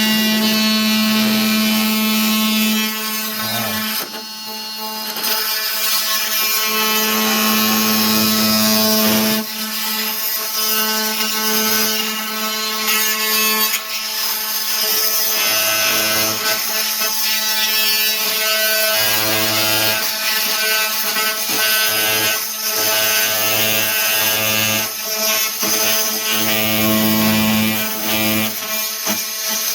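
Oscillating multi-tool running and cutting the countertop, a steady buzz with brief dips where it eases off or stops and starts again.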